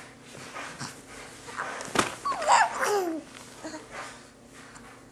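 Young baby cooing and babbling: a few short vocal sounds gliding up and down in pitch, loudest between about two and three seconds in.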